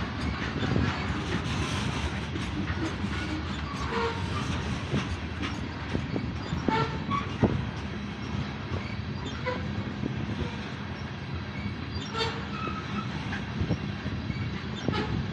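CSX freight train's covered hopper cars rolling past close by: a steady rumble of steel wheels on rail, broken by sharp clanks and brief squeals. The loudest is a single clank about halfway through.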